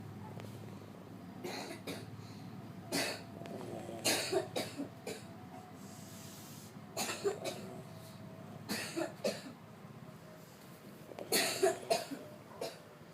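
A person coughing in short fits of one to four coughs, about six times, after low snoring in the first second or two.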